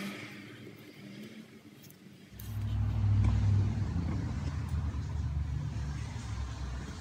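A low motor rumble that starts abruptly about two seconds in and then runs steadily.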